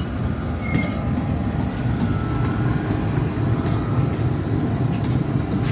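GEU40 diesel-electric locomotive running as it passes close by: a steady low engine drone.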